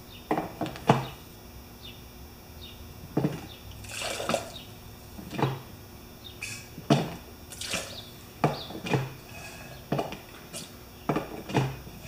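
A hand-squeezed plastic baster sucking leftover gasoline out of a small-engine fuel tank and squirting it out, in short irregular slurps and squirts about once a second.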